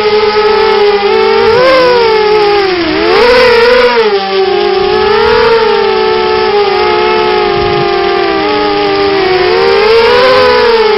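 CGX 250 racing quadcopter's electric motors and propellers whining in flight, several close tones rising and falling as the throttle changes, loudest about three seconds in.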